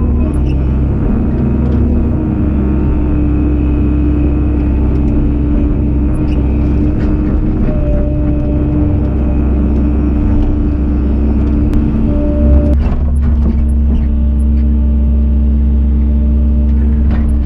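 JCB JS130 tracked excavator's diesel engine running steadily under working load, heard from inside the cab, with a steady hum. The tone shifts about 13 seconds in.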